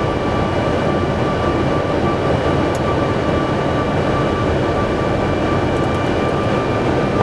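Steady noise of a Boeing 747-400 flight deck in the climb after takeoff, air and engine noise with a thin steady whine above it. A few faint clicks of overhead-panel switches, one about three seconds in and a few near the end.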